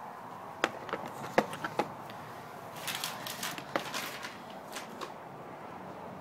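Medicine vials and small cardboard boxes being handled in a plastic storage tray: a few sharp clinks and taps, with brief rustling about three seconds in.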